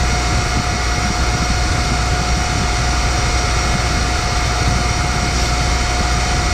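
Boyar-Schultz Challenger surface grinder running steadily with its spindle at speed: a constant high whine over a low hum. The spindle bearings are noisy, which the owner calls unhappy, while the motor itself sounds good.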